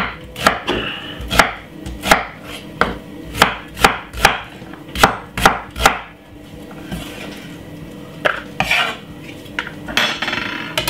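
Kitchen knife chopping white onion on a wooden chopping board: a run of about a dozen sharp knocks, roughly two a second, over the first six seconds. Then a few softer scrapes follow near the end.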